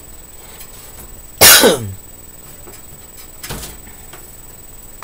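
A person coughs once, loudly and briefly, about a second and a half in; a softer short huff of breath follows about two seconds later.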